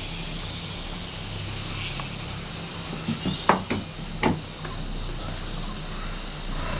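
Steady low hum inside a moving cable car gondola, with a few sharp knocks or clunks about three and a half to four and a half seconds in, and faint short high chirps near the start and end.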